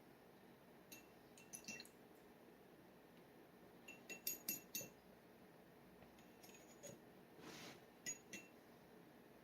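Faint, quick clinks of a steel dip pen nib tapping against a glass ink bottle, in several short clusters, with one brief scratch of the nib on paper about two thirds of the way through.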